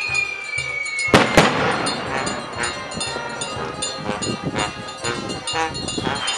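A festival skyrocket whistling as it climbs, its pitch falling steadily, then going off with two sharp bangs about a second in. Near the end another rocket's whistle starts, again falling in pitch.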